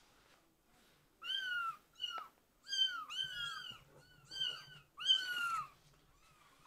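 Kittens meowing: about six high, thin mews starting about a second in, each rising then falling in pitch, some of them overlapping.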